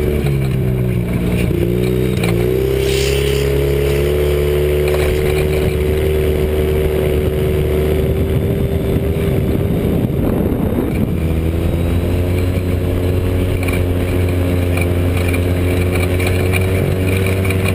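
Joyner dune buggy's engine, fitted with a Weber 45 DCOE carburettor and a big tube header, running hard while driving over sand dunes, heard from on board. The revs dip and climb back up in the first couple of seconds, then hold mostly steady.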